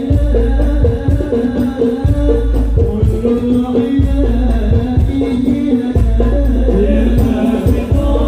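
Hadroh ensemble playing loudly through a stage PA: frame drums and rattling percussion over a deep, heavy bass, with a held melodic line stepping in pitch above the drumming.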